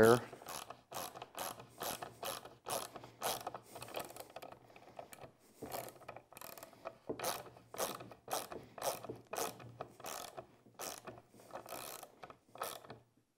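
Hand socket ratchet clicking as it is worked back and forth, driving a threaded insert on a hex bolt into the edge of plywood. It makes a series of sharp clicks, about two to three a second, that stops near the end.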